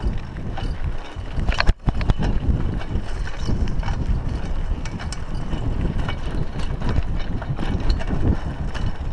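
Raleigh Ascent 26 mountain bike riding over a rough dirt track: a steady rumble of wind on the chest-mounted microphone and tyres on the dirt, with frequent small clicks and rattles from the bike. A sharp knock comes just before two seconds in.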